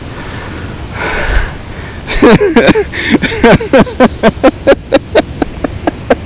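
A man panting hard with voiced, breathless gasps, quick short bursts about three or four a second, starting about two seconds in. Before that there is only a faint low rumble of wind on the microphone.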